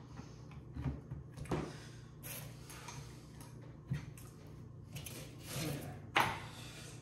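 Metal magazine parts of a Spanish M1916 Mauser rifle being worked into the action by hand: scattered clicks and short scrapes, the loudest a sharp click about six seconds in.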